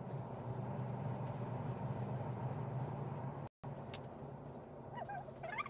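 A steady low mechanical hum like an idling engine, broken by a brief cut about three and a half seconds in. Near the end a cat meows and there are a few sharp clicks.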